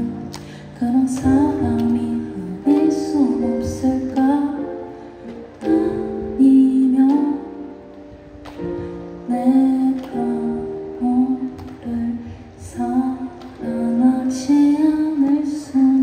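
A woman singing live while accompanying herself with chords on an electric stage keyboard.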